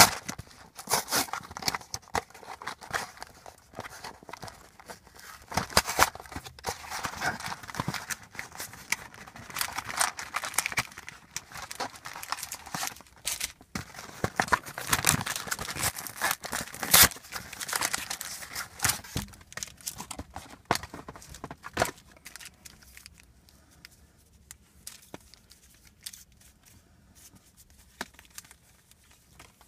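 Packaging on a box of football trading-card packs being torn open and crinkled: dense crackling and tearing for about twenty seconds, then only a few faint rustles.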